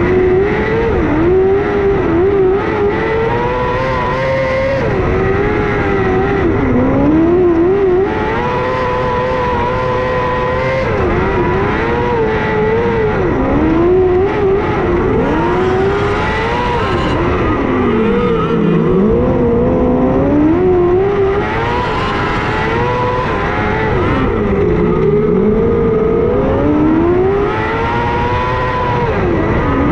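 Non-wing micro sprint car's motorcycle-derived engine at racing speed, heard from on board. The revs drop into each turn and climb again down each straight, rising and falling about every five to six seconds.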